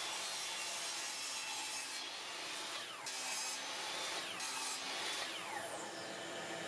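A tool working plywood, making a steady rasping noise, with a few whines that fall in pitch near the middle.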